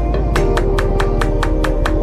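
Background music with a steady, quick beat of about five ticks a second over held melodic tones and a deep bass.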